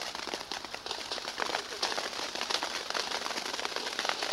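Ground fountain firework spraying sparks: a steady hiss thick with fine crackling.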